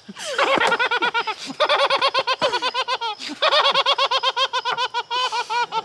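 A woman laughing hard in rapid high-pitched pulses, in three long runs broken by short gasps for breath, with others laughing along more quietly.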